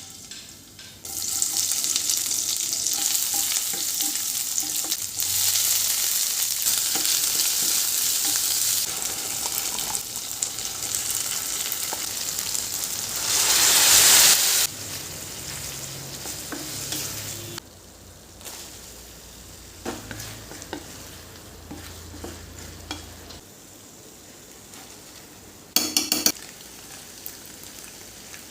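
Food sizzling in hot oil in a pan while a spoon stirs it. The sizzle starts about a second in, flares loudest about halfway through, then drops much quieter after about seventeen seconds, with a brief clatter of utensils near the end.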